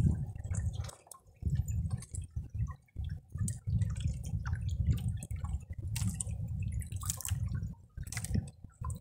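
Water dripping and splashing as a wet fishing net is hauled in over the side of a wooden boat, over a low rumble that comes and goes.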